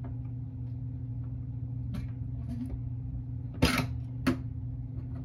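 Two metallic clicks a little over half a second apart, past the middle, from the Walther K43's rear disassembly latch being pushed forward and the steel action cover lifting free, with a fainter click before them. A steady low hum runs underneath.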